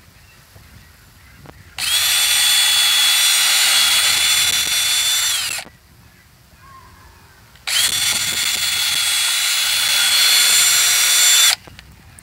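Cordless drill with a 9/64-inch bit boring holes into a pontoon boat's deck: two runs of about four seconds each, a couple of seconds apart, each with a steady high whine that starts and stops abruptly.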